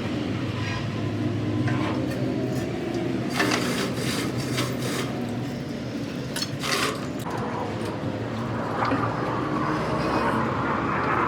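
Steady low machine hum, like an engine running, with a few sharp knocks, some around four to five seconds in and another near seven seconds.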